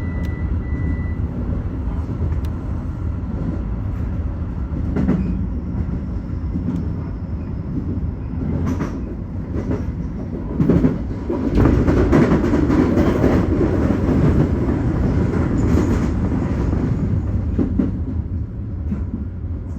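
Keio Line electric commuter train running, heard from inside the front car: a steady rumble of wheels on rails with a few knocks, growing louder for several seconds around the middle, then easing.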